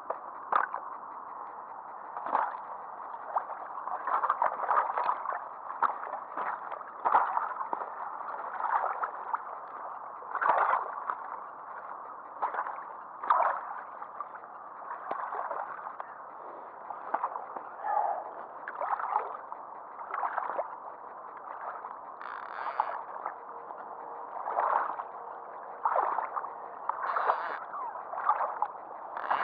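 Water sloshing and lapping close by, in irregular short surges about every second over a steady wash.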